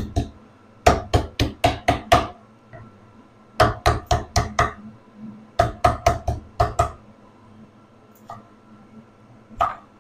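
Kitchen knife chopping green onions on a cutting board: three quick runs of six or seven strokes each, then a single knock near the end.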